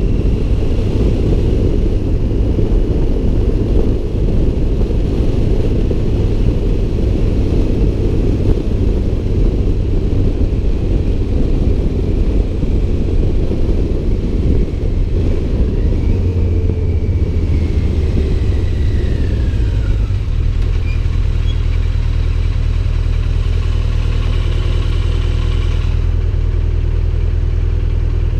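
Motorcycle engine running under a heavy rush of wind on the microphone while riding. About twenty seconds in the wind noise drops away as the bike slows, leaving the engine's steady low running.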